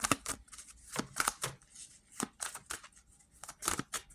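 Tarot cards being shuffled by hand: a quick, irregular run of sharp card snaps and flicks.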